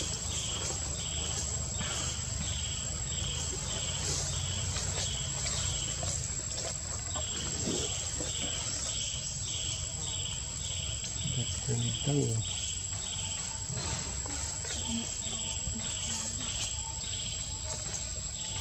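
Forest insects calling: a chirp repeated about twice a second in runs of several seconds, over a steady high-pitched whine. About two-thirds of the way through comes one brief low sound.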